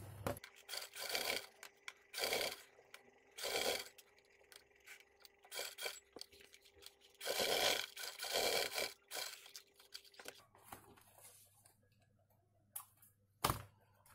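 Sewing machine stitching through leather in several short runs of about a second each, with a faint steady motor hum that stops about ten seconds in. A single sharp knock near the end.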